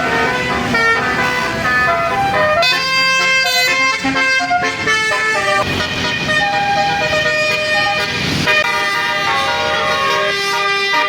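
Bus telolet Basuri multi-note horn playing a melody, its pitched notes stepping quickly from one to the next, with a short rush of noise about eight seconds in.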